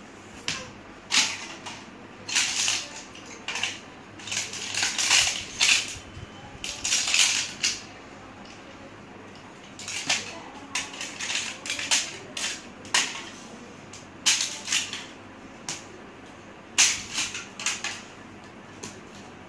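Thin clear plastic crinkling and crackling in a baby's hands and knocking on a tile floor, in irregular short bursts.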